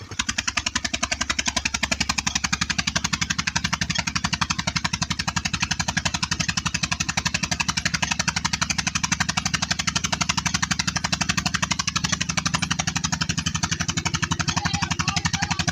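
Diesel engine of a tubewell pump running steadily, with an even, rapid knocking beat of about ten beats a second.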